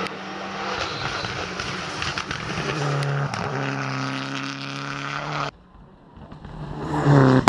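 Rally car engine running hard at high revs as the car passes, its note held steady, then cut off abruptly. The engine is then heard again approaching from a distance, rising in pitch and growing loud near the end.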